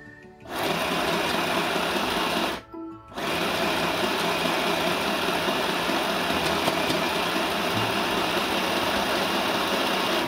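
Compact electric sewing machine stitching under foot-pedal control, running steadily. It stops for about half a second roughly two and a half seconds in, then starts again.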